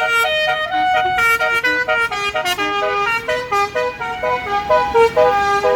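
Bus basuri telolet horn, a set of roof-mounted air-horn trumpets, playing a fast melody of short stepped notes that changes pitch several times a second.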